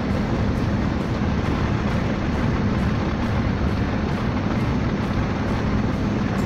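Steady engine and road noise inside the cab of a moving vehicle, with a constant low hum and no sudden changes.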